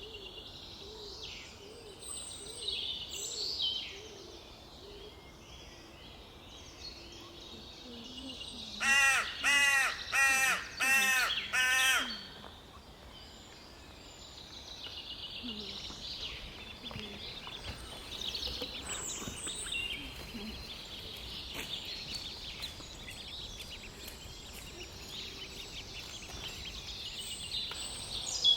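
Woodland birds singing, with one bird giving five loud calls in quick succession about nine seconds in.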